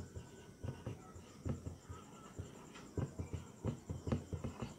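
Marker pen writing on a whiteboard: a run of faint, irregular short strokes, denser in the second half.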